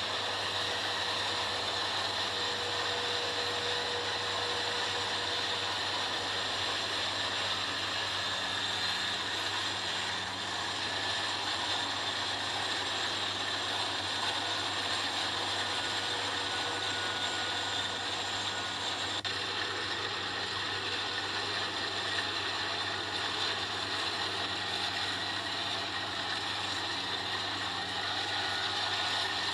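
Kubota rice combine harvester running steadily, its engine and moving machinery making a continuous mechanical noise.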